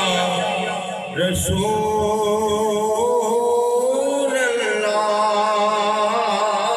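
A man singing an Urdu naat into a handheld microphone, holding long, wavering notes, with a short break for breath about a second in before the line resumes.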